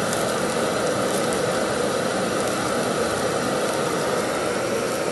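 High-pressure gas burner running at a steady, even rush under a pan of sauce.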